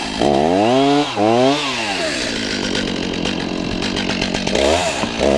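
Gas chainsaw cutting a hole down through river ice. It revs up and drops back twice, runs on more steadily, then revs again near the end.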